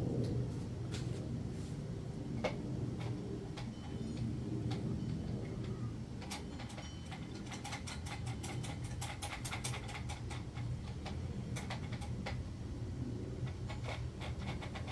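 Paintbrush tapping and dabbing on a plastic paint palette: scattered sharp clicks that turn into a quick run of ticks in the middle, over a steady low background hum.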